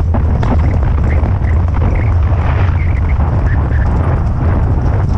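Wind buffeting the microphone in a heavy steady rumble, over the hoofbeats of a horse running on a dirt trail.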